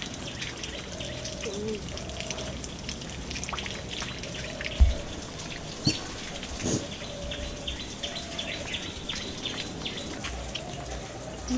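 Birds chirping with many small calls, over a steady background. About five seconds in there is a soft low thud, followed by a couple of light clicks.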